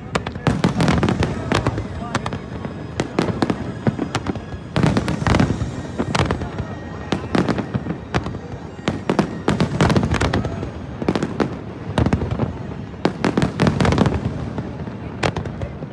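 Fireworks display: a rapid, irregular barrage of aerial shell bursts and crackles over a continuous low rumble.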